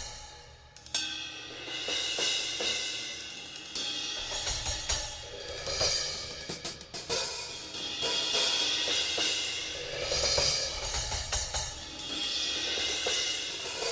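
Arborea Knight series cymbals played on a drum kit. Crash and hi-hat strikes ring out in long washes, with drum and snare hits underneath. A brief lull comes just before a strong crash about a second in.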